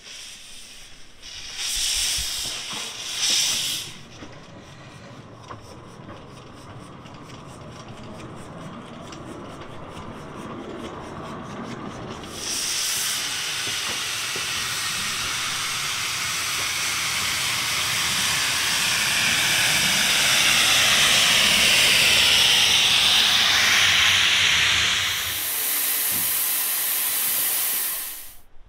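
Steam hissing from the small narrow-gauge saddle-tank steam locomotive Brown Bear, a replica of an 1905 Bagnall, with its cylinder drain cocks venting. There are two short loud bursts of steam early on. About 12 seconds in a loud, steady hiss starts, swells, dips briefly and then cuts off suddenly near the end.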